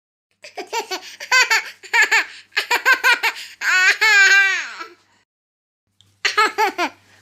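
Laughter sound effects: quick bursts of high-pitched laughing, then one long wavering laugh that bends down in pitch as it ends. After about a second of silence, another laughing clip starts with a faint low hum under it.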